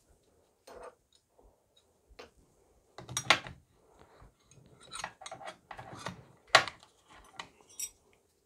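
Metal hand tools being picked through and handled on a workbench: irregular clicks, clinks and knocks, the loudest about three seconds in and again at six and a half seconds.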